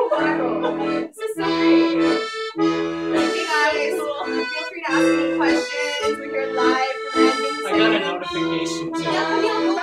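Piano accordion playing a folk tune: sustained chords over a bass line, its phrases broken by short gaps about every second or so. Voices sing along over it.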